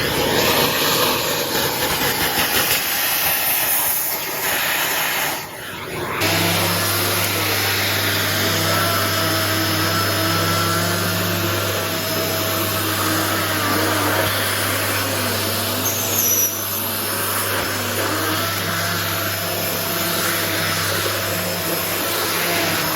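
Paper-bag vacuum cleaner running, a continuous suction rush. It dips briefly about five seconds in, then settles into a steady motor hum.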